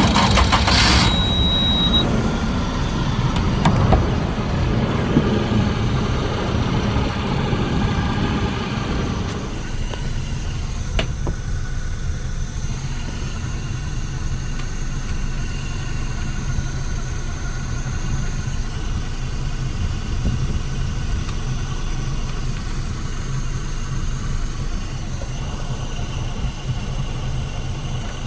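Suzuki DF115 four-stroke outboard engine running, with a steady high beep over the first couple of seconds. The engine sounds busier for about ten seconds, then settles into a steady idle.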